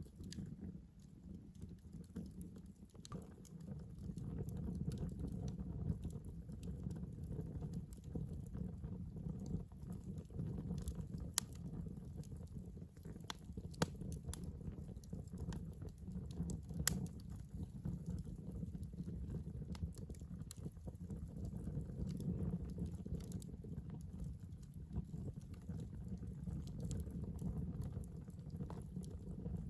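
Wood campfire burning, with scattered sharp crackles and pops over a low steady rumble; a few louder pops stand out in the middle.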